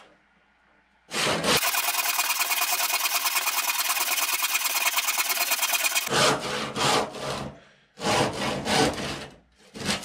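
Handsaw, one sold for plasterboard and aerated concrete, cutting across an oak rafter. It starts about a second in with some five seconds of unbroken, even rasping, then turns to separate push-pull strokes of about two a second.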